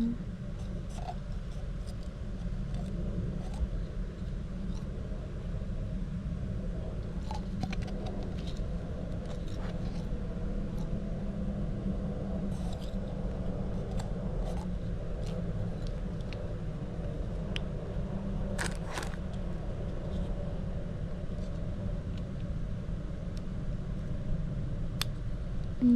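Scattered light clicks and scrapes of a small plastic lamp and its packaging being handled and pried apart, over a steady low hum.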